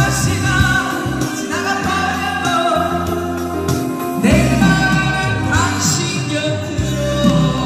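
A woman singing into a microphone over instrumental backing music, amplified through outdoor PA loudspeakers.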